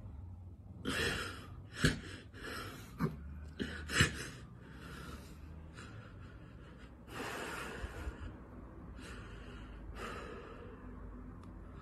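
A man crying, fist pressed to his mouth: shaky breaths and sharp gasping sobs, several in quick succession between about one and four seconds in, then longer, softer breaths.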